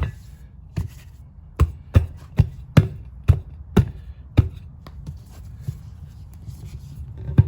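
About ten sharp knocks in quick, uneven succession over three or four seconds, then quieter handling noise, as a riding lawn mower tire is worked and pushed onto its rim to seat the bead.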